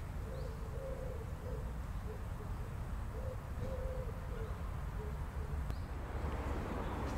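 A pigeon cooing in short repeated phrases over a steady low rumble, with a few faint high chirps from small birds.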